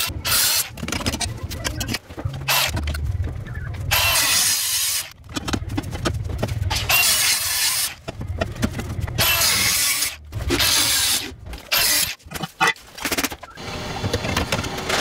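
Handheld angle grinder abrading the painted steel chassis of a 1971 Land Rover, in repeated bursts of one to two seconds with short breaks. It is stripping the layers of paint back to bare metal.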